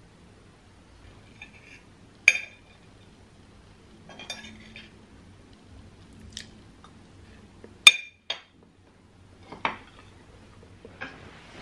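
A metal fork clinking against a plate. There are two sharp, ringing clinks, about two seconds in and near eight seconds, with lighter taps between them.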